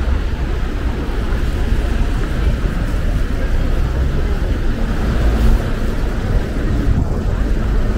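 City street traffic: a steady, continuous low rumble of passing vehicles.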